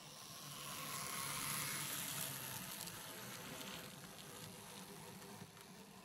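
009 narrow-gauge model railway coaches rolling past close by: a hiss of small wheels on rail that swells and then slowly fades, with a few faint clicks.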